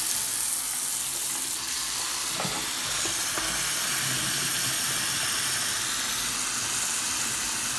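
Tap water running hard from a 1080-degree swivel faucet aerator into a bathroom sink basin: a steady hiss. A few faint clicks come a little after two seconds in.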